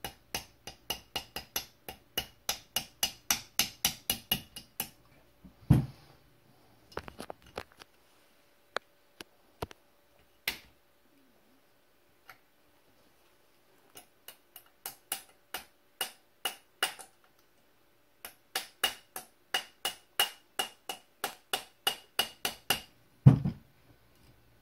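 Light, even hammer taps on a punch, driving the hammer pin into an AR-15 lower receiver, about three to four taps a second in three runs, with two heavier knocks.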